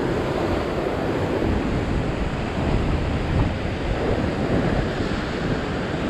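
Heavy ocean surf washing and churning over a rock ledge in a steady roar of white water, with wind rumbling on the microphone.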